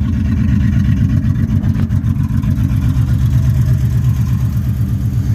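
Pickup truck engine idling steadily with an even, rapid low pulse, running smoothly again after a loose broken wire that had let it crank but only run for a second was pushed back in.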